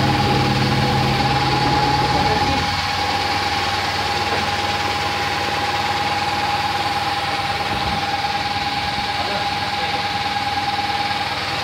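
Automatic macaroni and pasta making machine running, its electric motor and gearbox drive making a steady mechanical noise with a constant high whine. A lower hum drops out about two seconds in.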